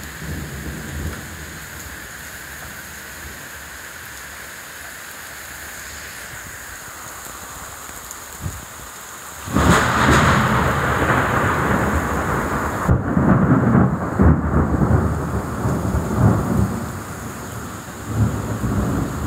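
Heavy steady rain. About halfway through, a sudden loud crash of thunder breaks in and goes on in long rolling rumbles over the downpour.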